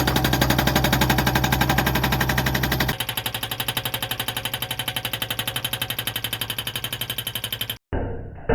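Excavator-mounted hydraulic breaker hammering rock in a rapid, even train of blows, with the excavator's engine running underneath. About three seconds in it drops in level. Near the end it cuts off abruptly, and a few dull thumps follow.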